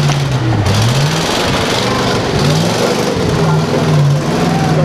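Off-road truck engine revving under load, its pitch dipping and climbing again several times.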